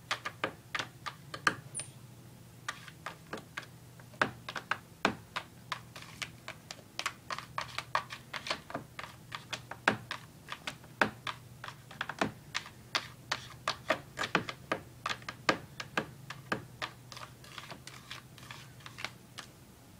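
A cat's claws scratching and tapping at the inside wall of a plastic laundry basket: quick, irregular clicks, several a second, thinning out near the end.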